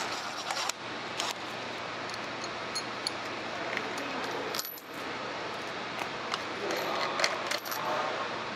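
Light metallic clinks and rattles of a BMW X3 engine's timing chain and its parts being handled and taken off by hand, a few separate clicks over a steady background hiss.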